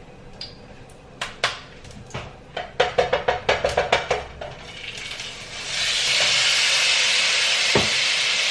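A quick run of clicks and taps from kitchen utensils, then, from about halfway through, a loud steady sizzle as raw seasoned chicken goes into hot oil in a frying pan.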